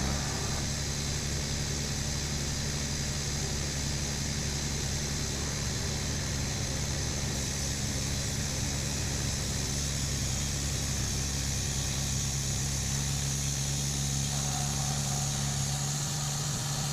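An engine running steadily at idle, a constant low hum; its deepest part drops away near the end.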